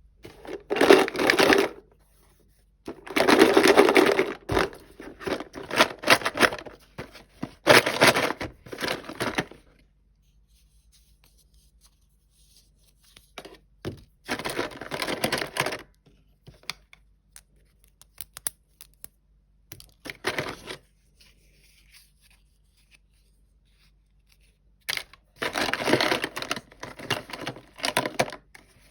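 Toy packaging being torn open and crinkled by hand, in several bursts of one to two seconds with quiet pauses between them.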